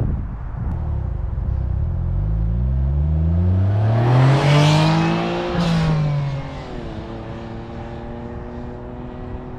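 Autozam AZ-1's turbocharged F6A three-cylinder engine, breathing through an ORIGINALITY catalyst downpipe and Mazdaspeed/Suzukisport dual-tip muffler. It is revved up steadily over about three seconds, held briefly, then falls back to a steady idle.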